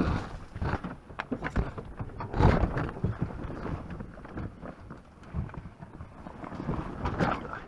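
Irregular crunching footsteps on icy ground, mixed with handling knocks and rustles. The loudest crunches come at the start and about two and a half seconds in.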